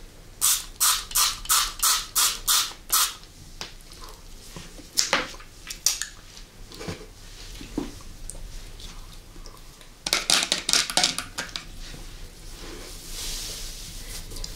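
Close-miked, wet chewing of a gummy candy, about three chews a second for nearly three seconds, then a few scattered mouth clicks, and another quick run of similar sounds about ten seconds in.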